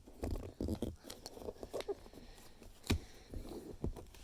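A sheet of origami paper rustling and crinkling as it is folded and creased by hand, in short irregular crackles, with one sharper snap about three seconds in.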